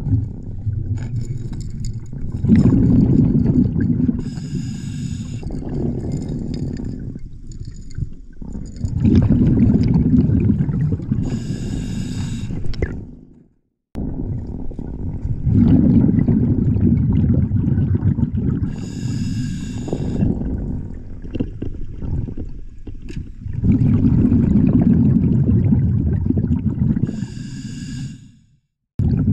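A scuba diver breathing underwater through a regulator, about four breath cycles: a short hiss on each inhale and a long rumble of exhaled bubbles, repeating every 7 to 8 seconds. The sound cuts out completely for a moment twice, near the middle and near the end.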